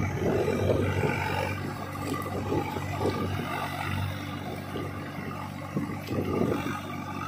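Swaraj 744 FE tractor's three-cylinder diesel engine running steadily as it pulls through deep wet mud.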